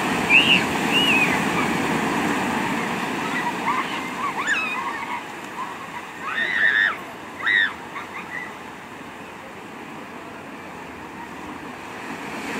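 Ocean surf breaking and washing up a sandy beach, a steady rushing that eases off in the second half and builds again near the end. A few short, high shrieks rise over it, the loudest a little past halfway.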